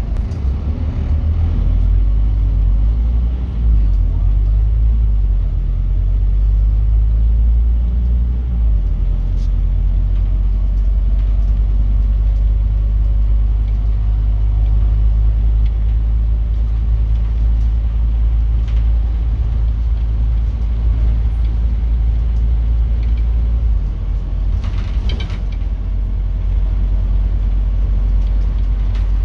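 Scania N270UB OmniCity bus's five-cylinder diesel engine and drivetrain running under way, a steady deep rumble heard from inside the passenger saloon, its engine note shifting in the first few seconds. A brief clatter comes near the end.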